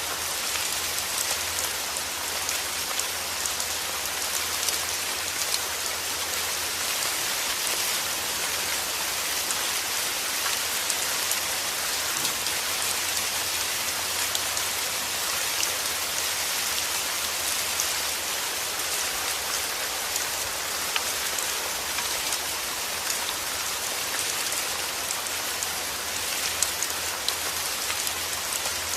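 Heavy rain falling steadily, a dense even hiss peppered with the ticks of single drops hitting a surface.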